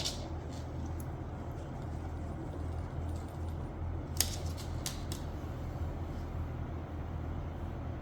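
A dog snoring: a low rumble that swells and eases with its breathing. A few light clicks come about four to five seconds in.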